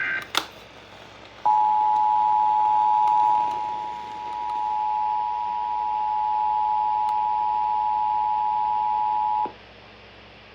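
Emergency Alert System attention signal: two steady tones sounded together, held for about eight seconds over faint radio hiss and dipping briefly in level midway, the alarm that announces an emergency alert broadcast. It starts about a second and a half in, after the last instant of the warbling digital header data burst and a click.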